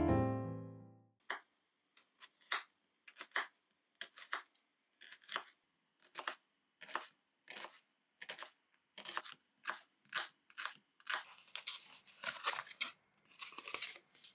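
Food being cut in repeated short strokes, about two a second, running together into quicker, longer cutting near the end.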